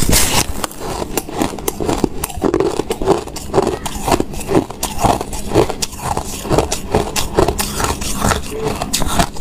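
Biting and chewing a chunk of ice coated in freezer frost: a loud crunch at the start, then a run of irregular crackling crunches as the frost and ice are chewed.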